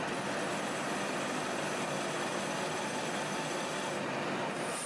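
Colchester lathe running with a flat hand file held against the spinning cast-iron cylinder, giving a steady, even hiss.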